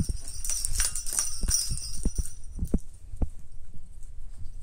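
Christmas decorations being handled: a light metallic jingling for about the first second and a half, then a few dull thumps.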